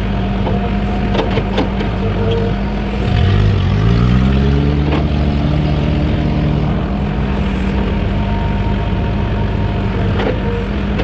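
Excavator diesel engine running steadily. About three seconds in, an engine note rises and then holds for a few seconds before easing, with a few short knocks.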